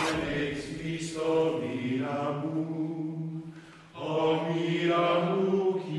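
Monks' chant: several male voices chanting together, held mostly on one pitch in two long phrases with a short break just before four seconds in.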